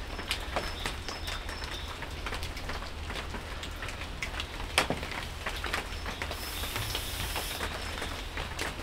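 Rain pattering on surfaces: a steady run of irregular drips and small taps, with one sharper tap about five seconds in.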